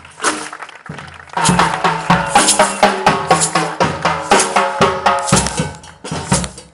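Batucada samba drum band playing, with surdo bass drums and snare drums. The drumming starts lighter and the full band comes in loud and dense about a second and a half in.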